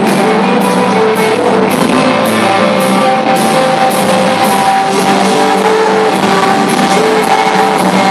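Live rock band playing loudly: electric guitar over a drum kit keeping a steady beat of about two hits a second.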